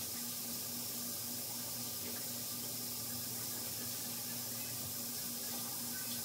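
Bathroom sink tap left running: a steady, even hiss of water with a faint low hum beneath it.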